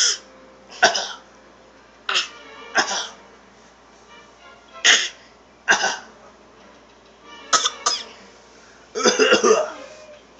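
A person coughing repeatedly: single and paired sharp coughs every second or so, ending in a quick run of coughs near the end.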